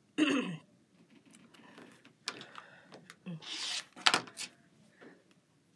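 Rotary cutter rolling along the edge of an acrylic quilting ruler, slicing the selvage off cotton fabric on a cutting mat: one short scraping cut, followed by a few sharp clicks, with faint rubbing as the ruler and fabric are handled.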